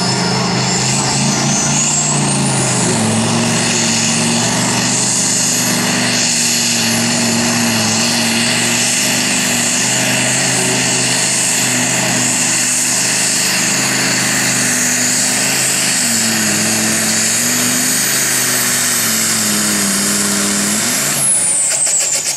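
Competition pulling tractor's V8 engine at full throttle through a pull, with a high whine over the engine note. The revs climb over the first few seconds and hold with a short dip, then the engine is backed off near the end and the note and whine fall away.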